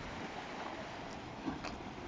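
Sea waves washing against rocks along the shore, a steady wash, with a brief knock about one and a half seconds in.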